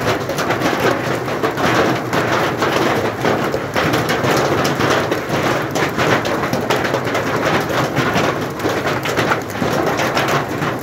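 Heavy rain mixed with hail falling: a loud, dense, steady patter of countless small impacts.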